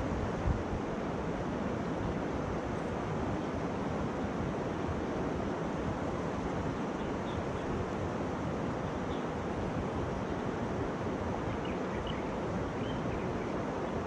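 Shallow river water flowing over a rocky bed, a steady rushing hiss, with wind buffeting the microphone as a low rumble.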